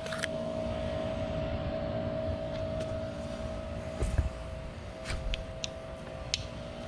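Motorcycle drive chain handled to check its slack: a low knock about four seconds in and a few light clicks after it, over a steady background hum.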